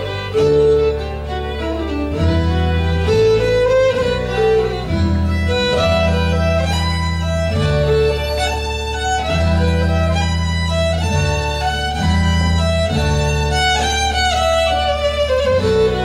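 Fiddle playing a fast Celtic dance tune in a run of quick notes, over held low bass notes from the backing.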